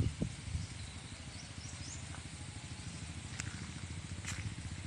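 Rural outdoor ambience: a steady low rumble with a fast flutter, and a couple of short high chirps in the second half.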